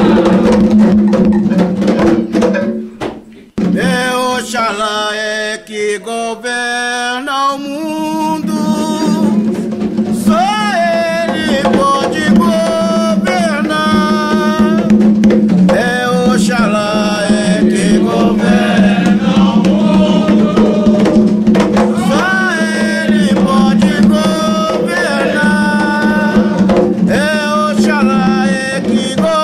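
Umbanda ponto (devotional chant) sung by a man's lead voice over hand-played atabaque drums. The music stops briefly about three seconds in, then singing and drumming start again.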